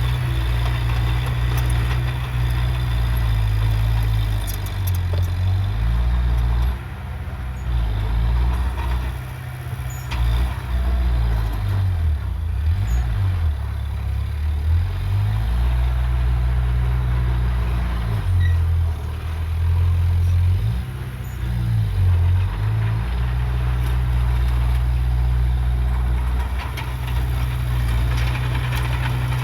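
Heavy diesel engine of earthmoving machinery running under varying load, its low note stepping up and down as the revs change.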